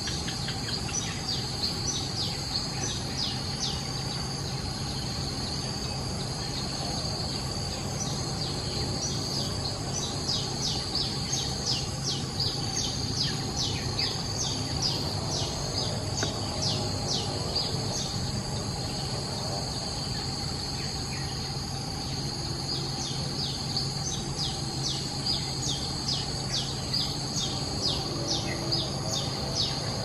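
Steady high-pitched insect drone, with many short, high, falling bird chirps scattered through it in irregular runs.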